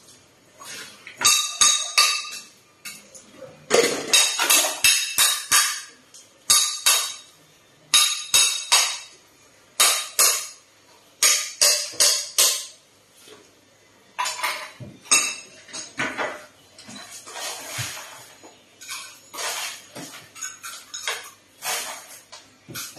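Dishes and cutlery clattering and clinking as they are handled on a kitchen counter, in irregular clusters of sharp knocks, some of them ringing briefly.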